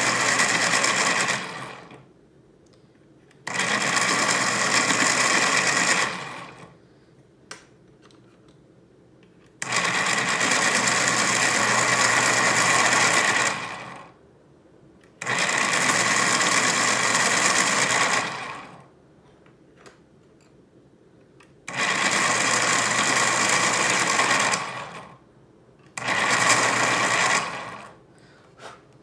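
Electric pencil sharpener whirring as colored pencils are sharpened, in six bursts of about two to four seconds each with short pauses between as each pencil is pushed in and pulled out.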